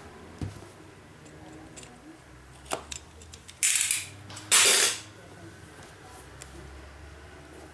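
Packaging being handled while a graphics card is unboxed: a soft knock, a sharp click, then two short rustling or scraping bursts of about half a second each, which are the loudest sounds.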